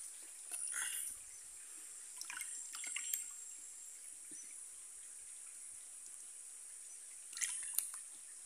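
Water splashing and trickling in short spurts as small tilapia are tipped out of a plastic tub into a pond: about a second in, around two to three seconds in, and again near the end, over a faint steady high hiss.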